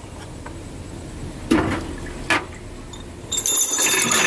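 Small metal engine parts clattering as a bucket of them is tipped out into a metal basin. There are two single knocks about a second and a half and two and a half seconds in, then a dense clatter near the end.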